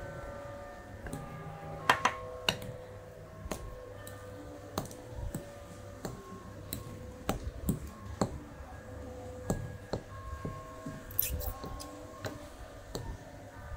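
Metal fork clicking and scraping against a glass mixing bowl while stirring mashed potato and cornstarch. The taps come irregularly, and the sharpest is about two seconds in.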